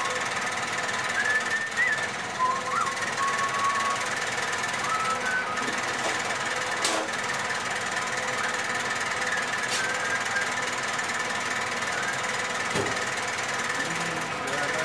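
Metal-working lathe running steadily, turning a white plastic rod with a cutting tool: a constant machine hum and whine, with faint wavering squeaky tones coming and going in the first few seconds and a single sharp click about seven seconds in.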